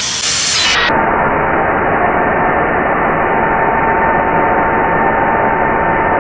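Small handheld electric air blower running steadily, a motor whine over a rush of air, blowing onto smouldering charcoal to get it burning. The steady whine sets in about a second in.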